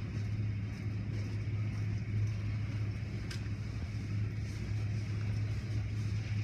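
Automatic car wash heard from inside the car: cloth wash strips and water spray swishing over the body above a steady low hum, with one sharp tick about halfway through.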